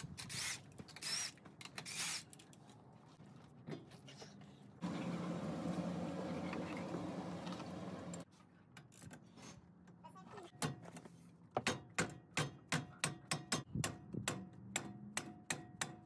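Hand tools working on a truck's front wheel: a few sharp squeaky metal bursts as the lug nuts are worked loose, a few seconds of steady hum, then a hand ratchet clicking in a steady rhythm, about two to three clicks a second, as the bolts behind the brake rotor are undone.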